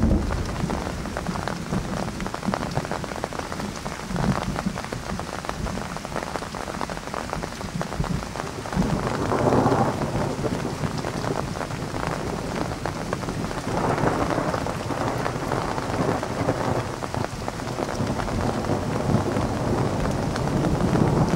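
Thunderstorm: steady rain falling, with thunder rumbling. The thunder swells up twice, near the middle and about two-thirds through, and low rumbling returns near the end.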